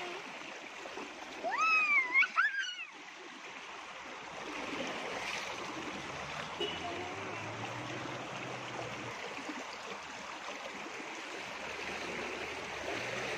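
Water rushing along a narrow irrigation channel, with a child's high squealing voice rising and falling about one and a half seconds in. After a brief dip the steady rush carries on, with a faint low engine hum through the middle.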